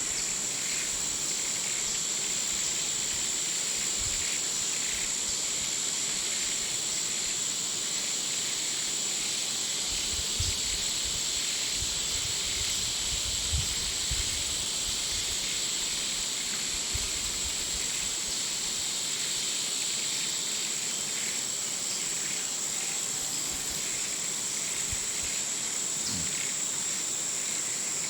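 Jungle afternoon ambience: a steady high-pitched insect drone with a hiss of many insects under it. A few soft low rumbles and thumps come and go around the middle.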